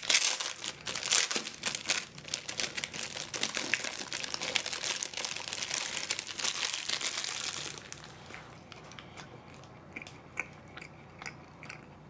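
Thin plastic bread wrapper crinkling as it is pulled open and a pastry is worked out of it, for about eight seconds; after that only faint, scattered crackles.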